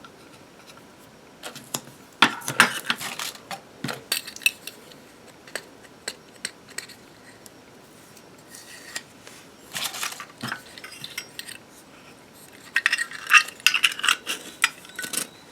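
Metal Zippo lighter cases clinking and tapping against each other and the desk as they are handled, in several short bursts of sharp clicks.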